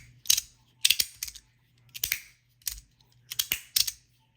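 Ronin magnetic fidget slider being slid back and forth, its plates snapping into the magnetic detents with sharp clicks that come in small clusters about every second.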